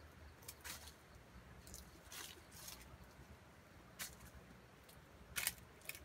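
Faint, scattered crackles and rustles of dry leaf litter as a red junglefowl rooster walks and forages: about seven short rustles, the loudest about five and a half seconds in, over a low steady background rumble.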